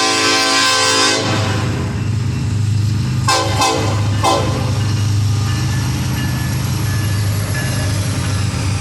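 Freight locomotive air horn sounding a chord that cuts off about a second in, then a few short sharp sounds, over the steady low rumble of the diesel locomotives pulling the coal train.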